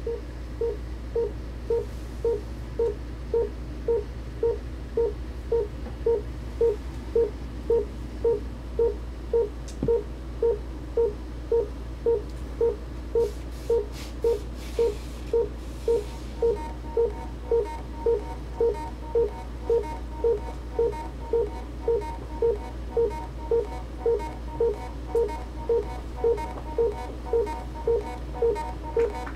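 Korg littleBits Synth Kit playing a sequenced patch: a short note repeating about twice a second over a steady low drone. About halfway through, a higher steady tone comes up.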